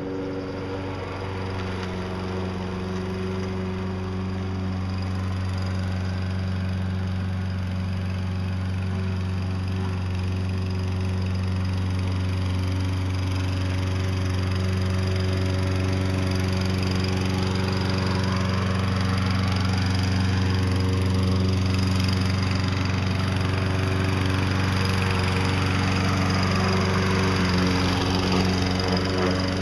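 Self-propelled walk-behind lawn mower's small engine running steadily as it pushes a homemade snow plow blade, getting gradually louder as it comes closer.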